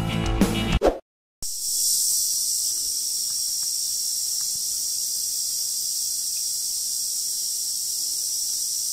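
Guitar intro music ends about a second in, with a brief silent cut. Then a steady, high-pitched insect chorus fills the rest, a continuous evening drone of crickets and similar insects.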